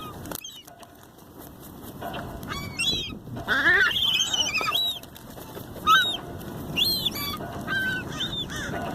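A flock of seagulls squawking over one another in many short, rising-and-falling cries while squabbling over food. The loudest call comes about six seconds in.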